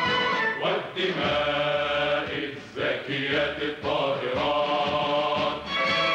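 Music with a singing voice holding long notes in phrases of one to two seconds, with short breaks between them.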